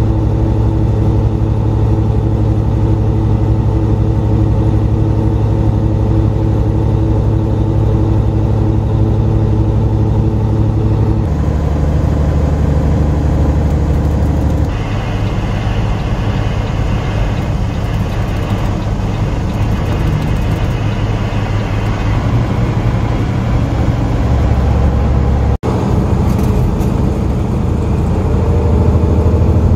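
Semi truck's diesel engine droning steadily from inside the cab while driving, with road noise under it. The drone's tone shifts abruptly twice and the sound cuts out for an instant late on.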